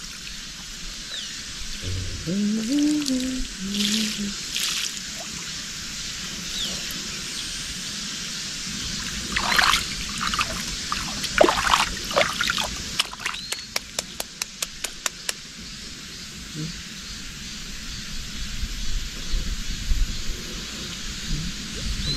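Water trickling and splashing in a water-filled inflatable boat, with a few louder splashes about ten seconds in as water is scooped by hand. Just after, a quick run of about ten sharp ticks.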